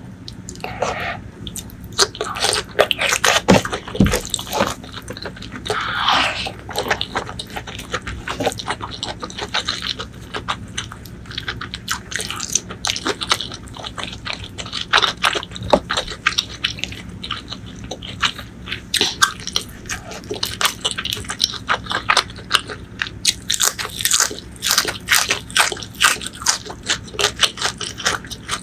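Close-miked eating by hand: wet chewing and crunching of rice, eggplant curry and fried mackerel, with fingers squishing and scraping curry-soaked rice, as dense irregular clicks and smacks throughout.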